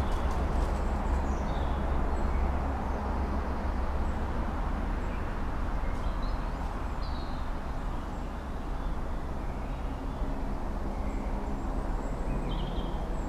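Outdoor woodland ambience: a steady low rumble with faint bird chirps now and then.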